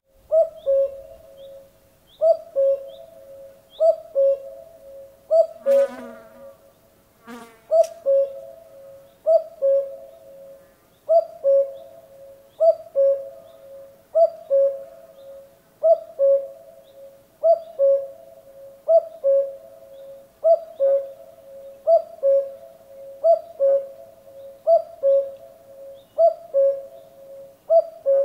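Common cuckoo calling its two-note 'cuck-oo', a higher note dropping to a lower one, repeated steadily about once every second and a half. Around six to seven seconds in, two brief, different sounds break into the series.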